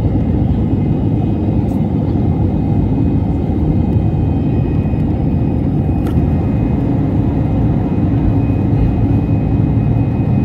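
Turbofan engines of an Airbus A320-family jet airliner at takeoff thrust on the takeoff roll, heard from inside the cabin: a loud, steady roar with runway rumble and a faint, high, steady whine over it.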